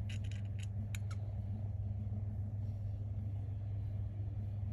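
A handful of light clicks in the first second or so, from a Spyderco SpyderChef folding knife being handled while its blade centering is adjusted, over a steady low hum.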